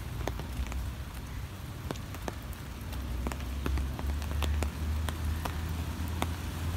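Rain falling on a wet road and trees, with irregular sharp ticks of single drops close by. A low rumble runs underneath, strongest in the middle.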